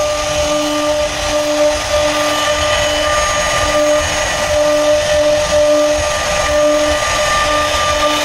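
Electric power tool motor running steadily during wood carving, a constant whine over a hiss, with a lower hum that pulses on and off.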